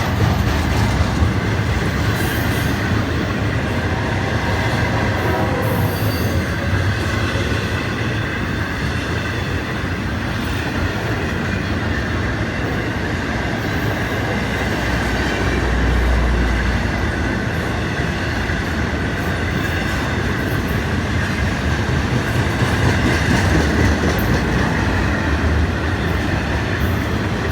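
Freight train rolling past: the steady rumble of steel wheels on the rails, with the rhythmic clack of wheels over rail joints and a continuous high wheel squeal.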